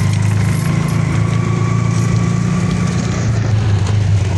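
Auto-rickshaw's small engine running steadily, heard from inside the open passenger cabin.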